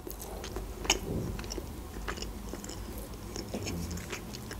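Close-miked mouth sounds of a person chewing a soft Barni sponge cake with chocolate filling, with scattered small clicks, the sharpest about a second in.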